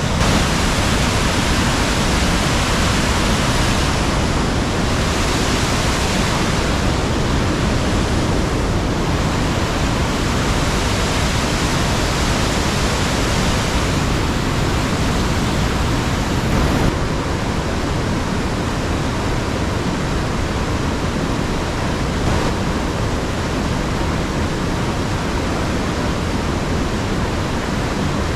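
Large waterfall rushing at high flow: a loud, steady rush of water with no break, easing slightly about two-thirds of the way through.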